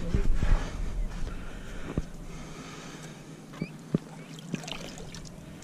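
Water sloshing among shoreline rocks, louder at first, with a few sharp knocks about two, three and a half and four seconds in as a fishing rod is picked up off the rocks.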